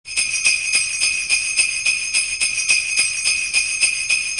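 Sleigh bells jingling in an even, steady rhythm of about four shakes a second.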